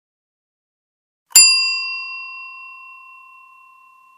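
A single bright metallic ding, like a small bell or a struck coin, about a second in, its clear ringing tone fading away over about three seconds.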